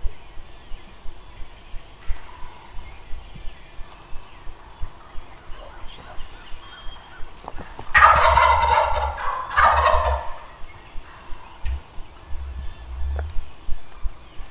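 Wild turkey gobbler gobbling loudly at close range, one gobble about eight seconds in that comes in two quick bursts. Regular low thumps, about two to three a second, run underneath.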